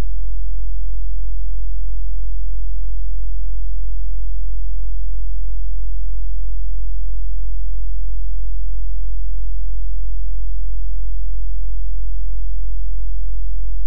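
Steady low-pitched hum: one unchanging deep tone with nothing else over it.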